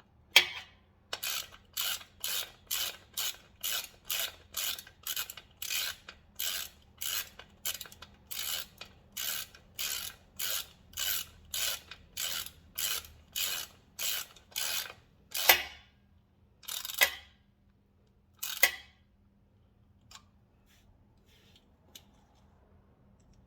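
Ratchet with a 6 mm hex bit tightening a swingarm spool slider bolt: an even run of ratchet clicks, about two strokes a second. About two-thirds of the way through come three slower, louder pulls as the bolt snugs down, and then the clicking stops.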